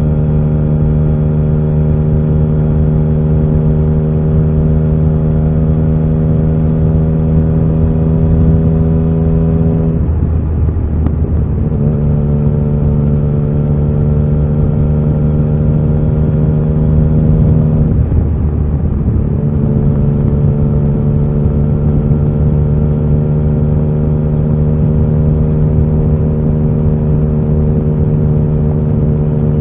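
Yamaha XSR900's inline three-cylinder engine pulling steadily under way, its note slowly rising. Twice, about ten and eighteen seconds in, the note breaks off briefly and comes back a little lower.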